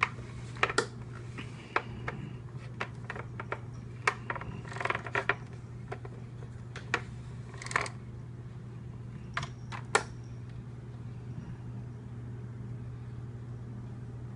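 Handling noise: scattered light clicks and taps, bunched in the first ten seconds and then stopping, over a steady low hum.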